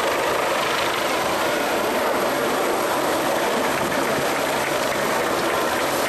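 Two twin-engine helicopters, an AgustaWestland AW169 and an AW109 Trekker, flying past together: steady rotor and turbine noise holding at an even level.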